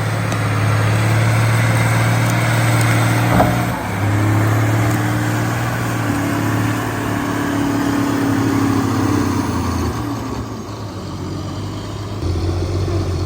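A large engine runs steadily. There is a sharp knock about three and a half seconds in. Near the end the engine eases off for a couple of seconds, then picks up again.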